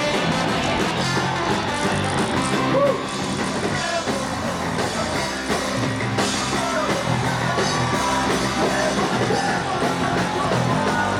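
A ska band playing live, with sung and shouted vocals over the instruments.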